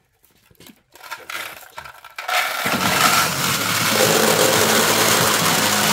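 Pachinko machine: after a near-silent moment and a few faint clicks, a dense, steady clatter of steel balls sets in about two and a half seconds in, over a steady low hum.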